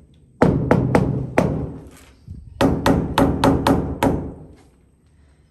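Mallet tapping a large 60x60 granite wall tile to bed it level in its cement: sharp knocks, each with a short ringing tail. Four come in the first second and a half, then a quick run of seven about two and a half seconds in.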